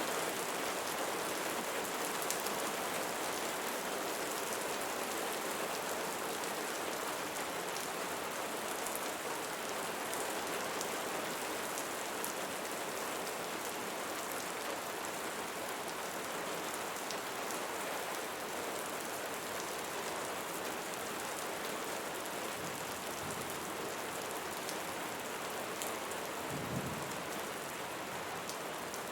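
Steady rainfall: a dense, even hiss with scattered ticks of drops landing on a surface. There is a brief low rumble near the end.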